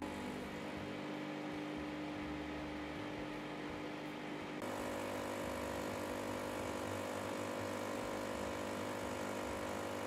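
Sage Oracle espresso machine's pump humming steadily during an espresso extraction, as coffee drips from the portafilter spouts. The hum changes tone and gets slightly louder about halfway through.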